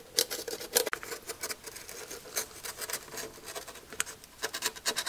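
Utility knife blade cutting through the thin wood veneer of a hollow core door around the edge of a hole, making an irregular run of small scratching clicks.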